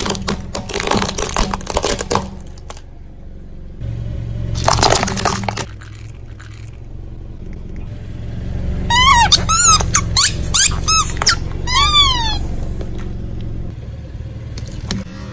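Car tyre crushing toys with noisy crackling crunches, then rolling onto a row of rubber squeaky dinosaur toys whose squeakers give a quick string of loud squeals, each sweeping up and down in pitch, over a low rumble of the car.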